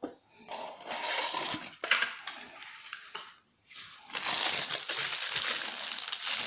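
Dashcam box packaging being handled: rustling and crinkling with a few sharp clicks, louder and more continuous in the second half.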